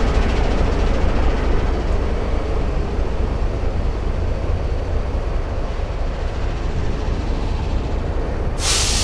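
Large diesel truck engine running steadily with a heavy low rumble, and a sudden loud hiss starting near the end.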